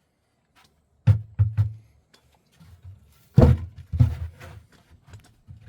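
Handling knocks and thumps as the camera is set up and moved: a string of sharp bumps starting about a second in, the loudest about three and a half seconds in.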